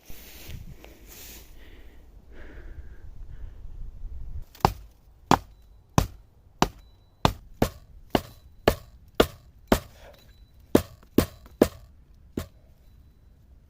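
Wood being chopped with a blade: about fourteen sharp blows, roughly two a second, beginning about a third of the way in and stopping a second before the end, with one short pause. Before the blows there is a stretch of rustling handling noise.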